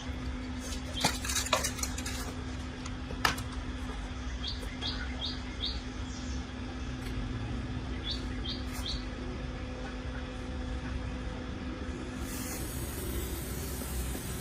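A few sharp metallic clinks and taps, followed by short high chirps in a group of four and then a group of three. Near the end a steady hiss starts.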